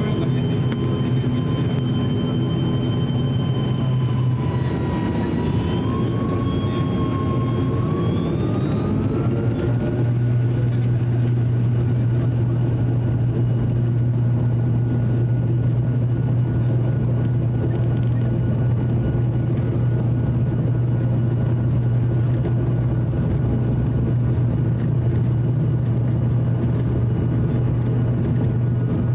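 ATR 42-600 turboprop's Pratt & Whitney PW127 engines and propellers heard from inside the cabin: a steady drone with a whine that rises in pitch about five seconds in as power comes up for takeoff, then holds steady through the takeoff roll.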